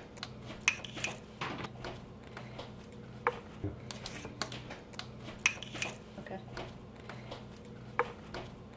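A spreading knife scraping and tapping as thick sauce is spread over a soft bread bun and scooped from a plastic-wrapped container: scattered light clicks and short scrapes, the sharpest about a second in, halfway through and near the end.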